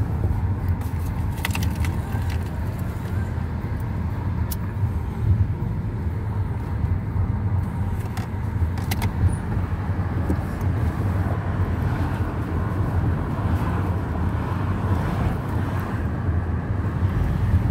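Steady road and engine rumble of a car in motion, heard from inside the cabin, with a few brief clicks.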